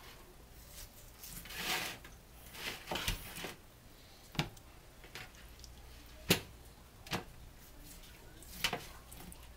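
A knife cutting through a rack of smoked pork ribs on a metal baking sheet, the blade scraping and knocking against the pan several times, the sharpest knock about six seconds in.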